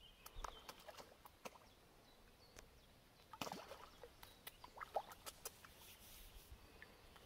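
Faint outdoor pond ambience: scattered small clicks and ticks with a few short chirps over a low hiss.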